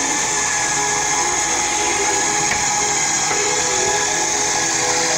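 Motorized boat chair lift running steadily, its motor giving an even whine with a high hiss as it raises the seated rider out of the water.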